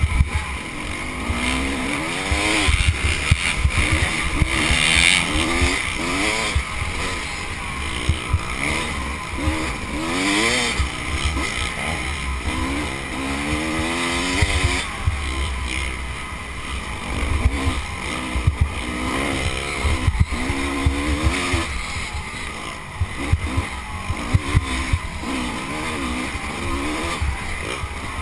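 Off-road motorcycle engine ridden hard, its revs rising and falling again and again as it works through the gears. Heavy wind buffeting and bumps thud on the microphone underneath.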